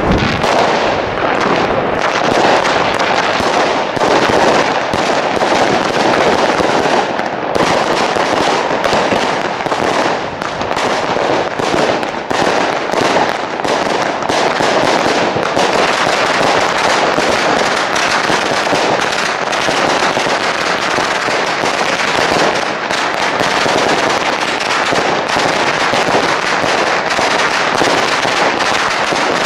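Six Albert Tiger King firework batteries firing, a dense, unbroken barrage of rapid shots and crackling that goes on at an even loudness.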